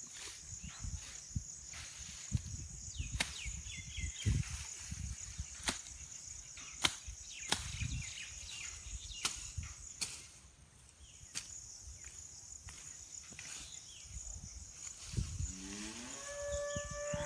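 Irregular sharp snaps and rustling as CO3 grass is cut by hand with a sickle, over a steady high buzz of insects. Near the end a cow moos, its pitch rising and then held.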